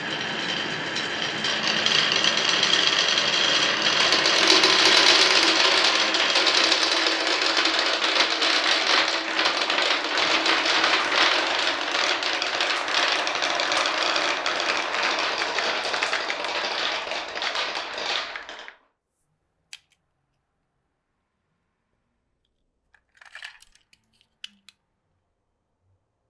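Many glass marbles rolling and clattering along a wooden marble-run track, a dense rapid clicking that cuts off abruptly about two-thirds of the way through. A few faint clicks follow near the end.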